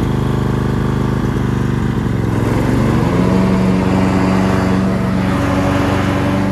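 Honda 2216 ride-on mower's 16 hp V-twin engine running steadily. About three seconds in, a pitched whine rises and then holds alongside it: the noisy drive, which the owner puts down to the transmission drive, perhaps a pulley.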